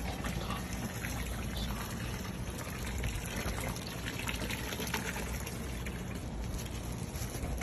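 A garden hose running into a plastic storage tub already partly full of water: a steady splashing pour as the tub fills.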